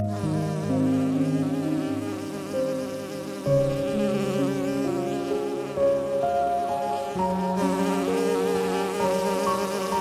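A flying insect's wing buzz, wavering in pitch, over soft background music of held notes; the buzz stops about three-quarters of the way through.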